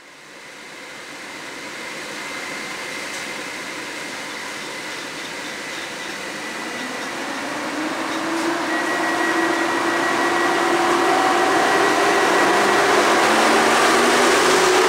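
EP07 electric locomotive starting away from a station stop with its passenger train and accelerating towards the listener: a steady mechanical whirr with a thin high whine and a lower hum that rises in pitch, growing louder as it nears.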